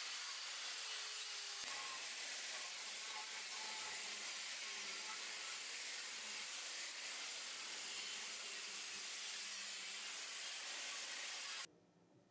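Angle grinder's abrasive wheel cutting through a steel billet canister, a steady grinding hiss with a faint high whine. It stops abruptly near the end.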